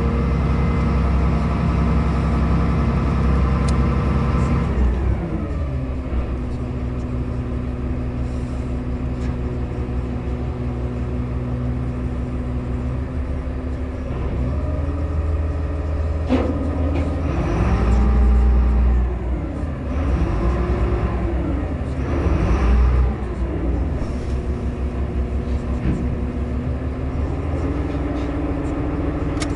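Car ferry's engines droning, heard from inside a car on the vehicle deck: a steady hum of several pitched tones that drops in pitch about five seconds in. In the middle it rises and falls several times with heavier low rumbles, then settles a little higher near the end.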